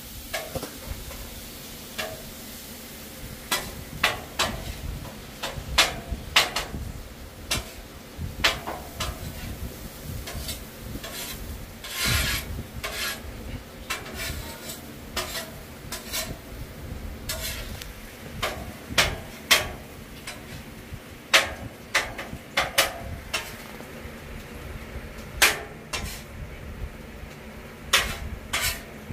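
Metal spatulas clacking and scraping on a Blackstone flat-top griddle, chopping up thin-sliced chicken, over a steady sizzle of the meat frying. The sharp strikes come irregularly, about one or two a second.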